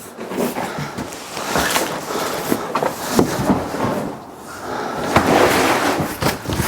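Large cardboard bike box being handled: cardboard scraping and rustling, with several knocks.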